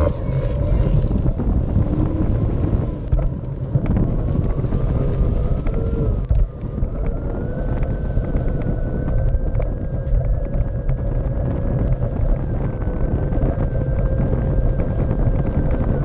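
Onewheel electric board's hub motor whining as the board rolls downhill, the whine climbing in pitch from about four seconds in, holding, then dropping near the end as speed changes. Under it runs a heavy rumble of the tyre over grass, mixed with wind on the microphone.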